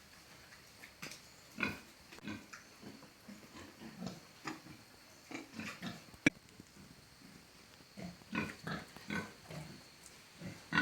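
Pigs grunting now and then, short irregular grunts from several animals. A single sharp click sounds about six seconds in.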